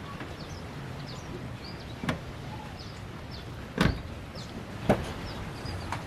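Toyota Kijang's rear side door shut with a heavy thump a little before four seconds in, with lighter clunks about two seconds in and about five seconds in. Small birds chirp in the background.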